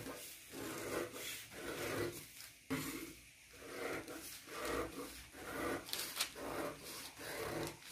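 Paper pattern pieces being picked up, laid out and slid across the work surface: soft rustling and rubbing that comes and goes, with one sharper tap a little under three seconds in.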